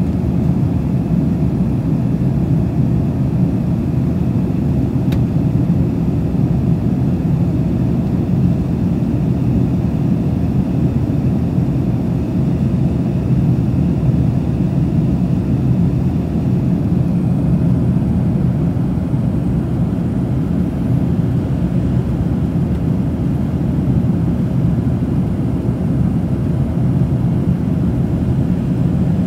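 Steady cabin roar inside an Airbus A380-861 in flight: engine noise from its Engine Alliance GP7200 turbofans mixed with airflow over the fuselage, a deep, even rumble that does not change.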